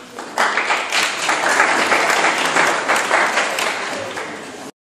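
Audience applauding, many hands clapping at once. It starts about half a second in, then cuts off suddenly near the end as the recording stops.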